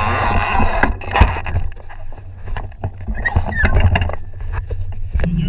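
Scattered knocks and handling noise on a fibreglass bass boat's deck, over a haze of wind and water noise, with a few short high chirps in the middle. Near the end a steady low outboard-engine drone cuts in abruptly.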